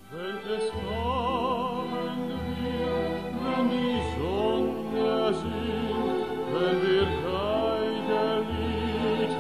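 A male operetta singer singing a melody with wide vibrato over an orchestral accompaniment with pulsing bass notes.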